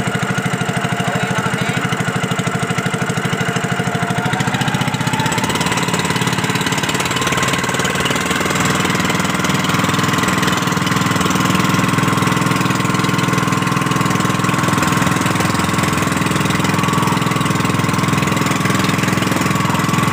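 Small boat engine running loudly and steadily, speeding up about four to five seconds in and then holding at the higher speed.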